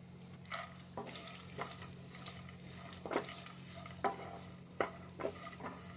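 Wooden spatula stirring chopped cashews, almonds and pistachios frying in ghee in a non-stick pan: irregular scrapes and knocks against the pan, one or two a second, over a faint sizzle.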